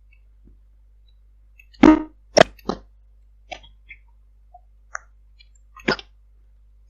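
A string of irregular sharp clicks and pops, the first and loudest about two seconds in, over a steady low hum, heard through a recorded Viber call line.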